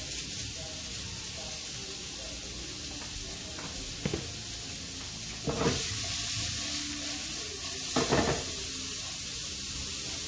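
Sliced onion sizzling steadily in olive oil in a frying pan on a gas hob, with three sharp knocks about four, five and a half and eight seconds in as the pan is handled and shaken.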